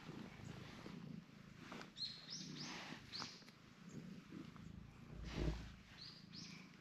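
A cat purring quietly as it is stroked on the head, with a few short high bird chirps about two to three seconds in and again near the end, and a low rustling bump about five and a half seconds in.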